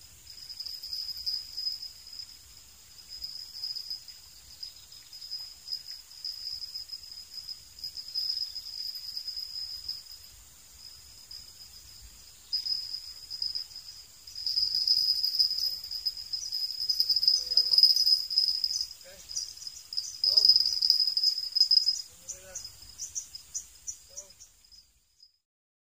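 A shrill insect chorus: a high, steady trill that swells and fades, louder in the second half. It breaks into separate chirps near the end, then cuts off suddenly.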